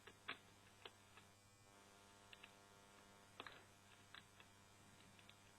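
Faint, scattered small clicks of a Torx screwdriver backing out the single screw holding a mini PCI Wi-Fi card, over a steady low mains hum.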